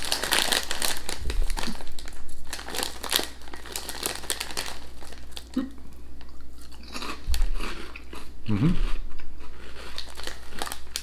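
A crisp packet of Quavers crinkles as a hand reaches in during the first few seconds. Then two people crunch and chew the light, puffy snacks.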